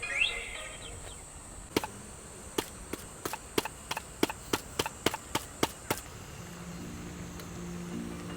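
A quick run of about a dozen sharp wooden knocks, roughly three a second, lasting about four seconds.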